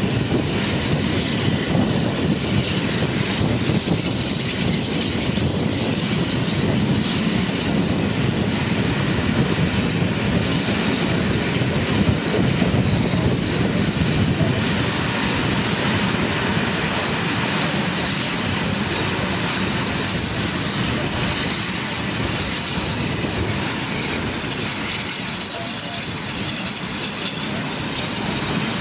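Steam-hauled train running along the track: a steady rumble of wheels on rail.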